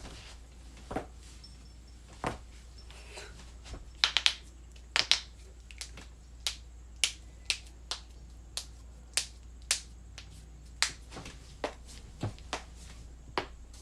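Joints cracking: a series of about twenty short, sharp pops, roughly two a second with a quick cluster about four seconds in, over a low steady hum.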